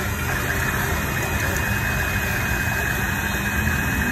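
Steady hum of street traffic, with the engines of cars and motorbikes running and idling close by.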